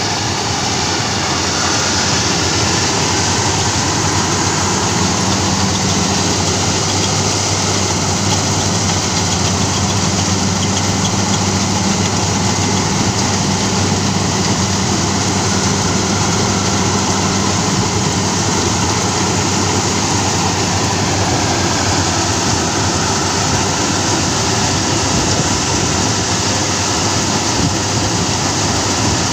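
FMWorld Ruilong Plus tracked rice combine harvester running steadily as it harvests rice: a loud, even machine noise with a constant low hum.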